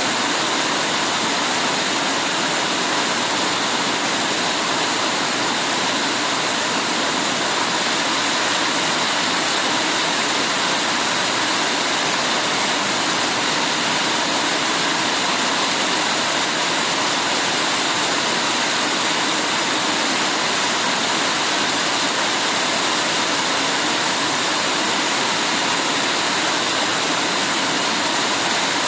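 Heavy rain falling steadily, an even, unbroken wash of noise with no separate drops or thunder standing out.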